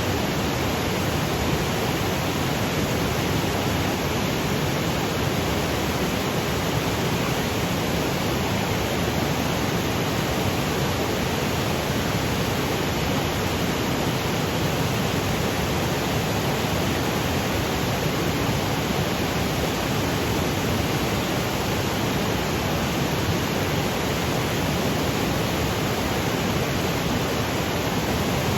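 Waterfall cascading over granite boulders: a steady, even rush of falling water with no breaks or changes.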